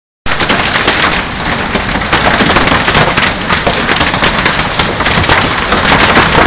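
Hailstorm with heavy rain: hailstones pelting down in a dense, continuous clatter of hard impacts over the hiss of rain. It starts abruptly just after the beginning.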